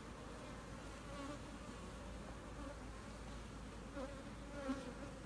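Steady hum of a strong colony of honey bees over the open frames of a hive.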